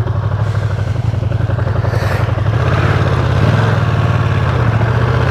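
Ducati Streetfighter V2's V-twin engine running steadily with wind rush, heard from a mic inside the helmet with the visor open; it grows a little louder about halfway through.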